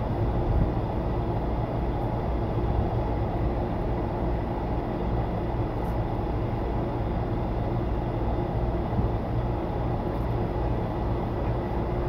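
Large electric box fan running steadily: an even low drone with a constant motor hum.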